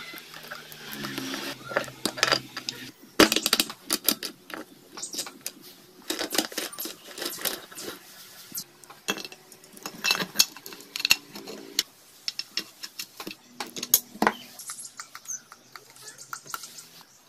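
Steel engine parts clinking and clicking against each other and the aluminium crankcase as the camshaft and gears are fitted by hand, in irregular clusters of sharp metallic taps.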